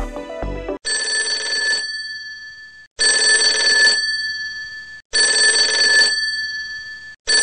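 A phone ringing: three rings about two seconds apart, each ringing for about a second and then fading, with a fourth ring starting at the very end. Music plays briefly before the first ring.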